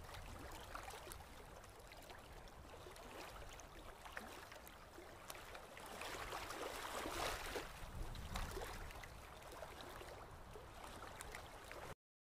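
Ocean surf washing onto a sandy beach: a steady rush of waves that swells louder about seven seconds in, then cuts off abruptly just before the end.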